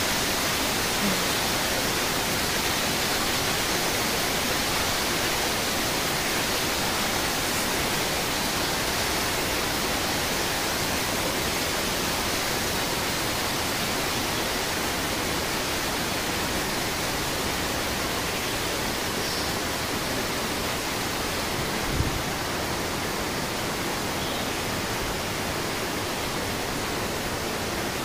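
Steady rushing of a stream and waterfall below the bridge, an even hiss of flowing water, with one short low thump near the end.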